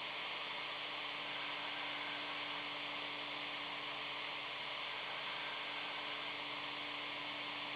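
Steady radio hiss with a constant low hum tone from a Motorola M-120 VHF FM mobile radio while the repeater link stays keyed up carrying only noise. Net control takes this for a problem coming from the west.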